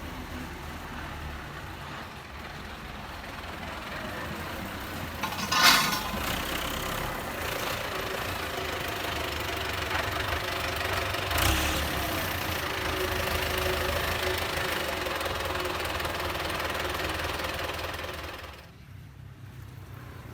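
Belarus MTZ 820 tractor's four-cylinder diesel engine running steadily, with a brief sharp loud noise about six seconds in and a smaller one near the middle; it drops quieter near the end.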